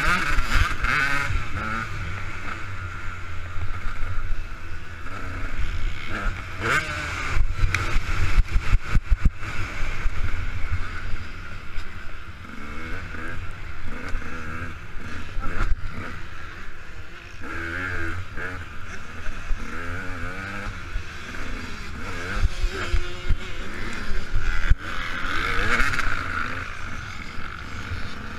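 KTM 200 EXC two-stroke single-cylinder dirt bike engine, its revs rising and falling as it is ridden around a motocross track. It is heard muffled from a helmet-mounted camera, with a run of knocks from bumps about seven to nine seconds in.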